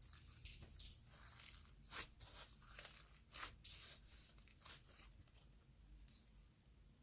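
Soft clay slime being stretched and squeezed by hand, giving quiet, irregular crackles and tearing sounds that thin out near the end.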